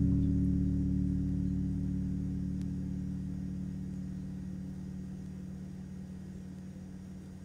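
Closing low chord on a Chapman Stick ringing out after the song's last note, several low notes sustaining together and fading slowly and evenly.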